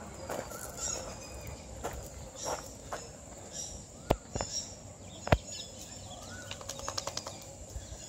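Outdoor ambience with faint bird chirps, broken by a few sharp clicks. The loudest two come about four and five seconds in.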